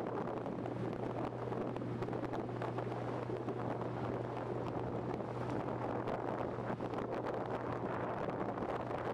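Motorboat engine running steadily under way, a constant low drone, with wind buffeting the microphone over it.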